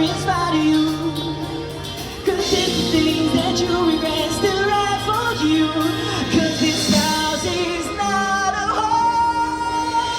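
Pop song with a singing voice, over sustained bass notes.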